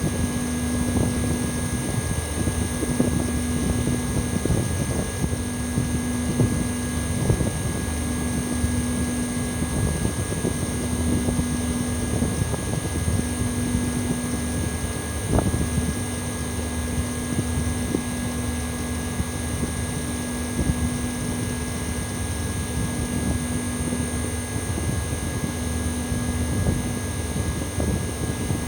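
Outdoor unit of an old Mitsubishi Electric Mr.SLIM commercial air conditioner running in cooling mode. It makes a steady fan-and-compressor noise, with a high-pitched metallic whine over a distinctive mid-range hum that wavers every second or two.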